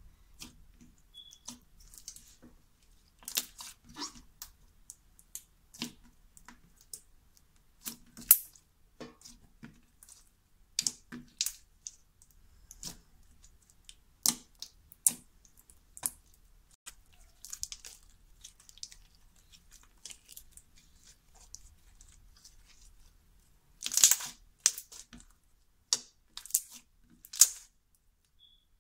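Slime being squished and poked by hand, giving irregular sharp pops and crackles, some louder than others, with a dense run of them about three quarters of the way through.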